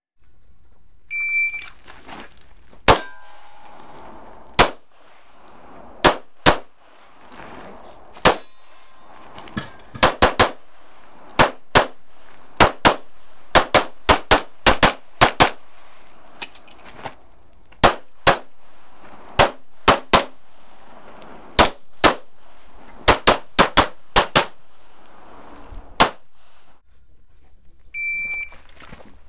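Electronic shot timer gives a short start beep, then a semi-automatic pistol fires about thirty shots in pairs and quick runs with pauses between them. Another short timer beep sounds near the end.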